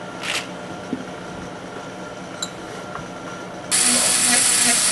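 A few light clicks and taps, then about four seconds in a high-speed rotary tool switches on and runs steadily with a loud high hiss, abrading the inside of an injection-moulded plastic rifle stock to roughen it for bedding epoxy.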